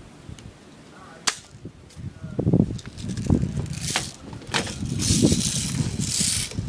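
Airsoft gun firing single shots on semi-auto: a few sharp snaps, the first about a second in and two more close together near the middle, with rustling and muffled voices between them.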